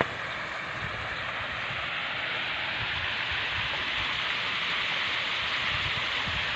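A steady rushing hiss with no distinct events, slowly getting a little louder.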